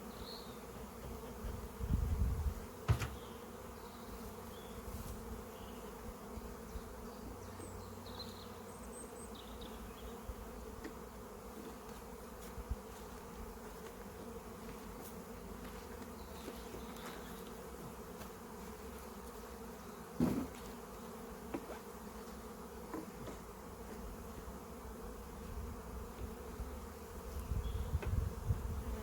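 Honeybees buzzing steadily around the hives as a constant hum, with a couple of sharp knocks and brief low rumbles.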